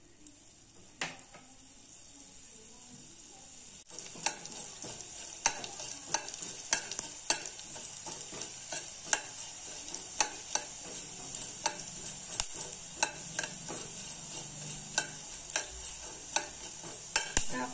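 Coriander seeds sizzling in ghee in a stainless-steel kadhai with a steady hiss. From about four seconds in they are stirred, and frequent sharp clicks sound as the spoon knocks and scrapes against the pan.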